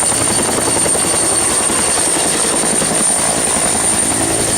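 Helicopter sound effect: a loud, steady rotor-and-engine noise with a thin high whine on top.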